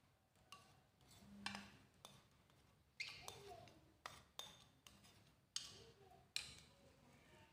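A plastic spoon scraping and tapping against a ceramic plate and bowl as grated cucumber is scraped off: a series of light clinks and short scrapes, about eight in all.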